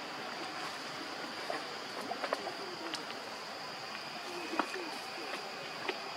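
Outdoor natural ambience: a steady high-pitched hum with scattered soft clicks, and a few short, low, falling calls about four and a half seconds in.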